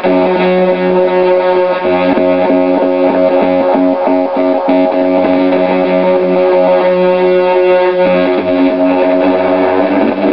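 Atari Punk Console square-wave synth sounding a steady buzzy drone through a circuit-bent Danelectro Fab Echo delay, pulsing quickly; the tone shifts about eight seconds in.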